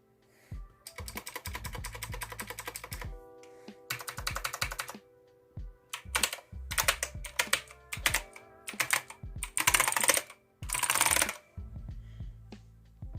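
Typing on a Redragon K568 Dark Avenger mechanical keyboard with clicky Outemu blue switches. The sound comes in several bursts of rapid, loud clicking, fastest and loudest near the end, with background music underneath.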